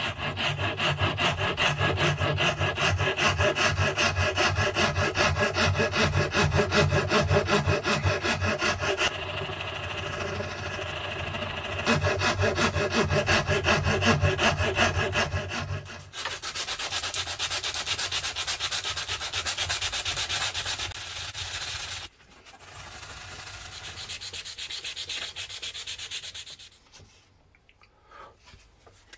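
Flat steel file scraping back and forth over the wooden handle scales of a marking knife held in a vise, in quick repeated strokes. Partway through the strokes turn lighter and thinner, and they die away shortly before the end.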